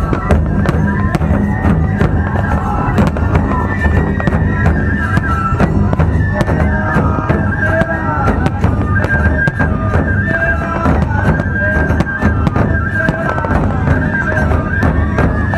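Nebuta hayashi festival music: fue flutes playing a melody over pounding taiko drums and the sharp clanging of tebiragane hand cymbals.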